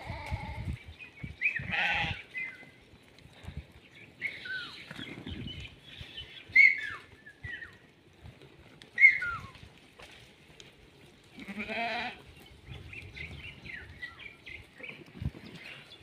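A flock of Merino-cross sheep and lambs bleating in short calls scattered throughout, several of them high and falling in pitch.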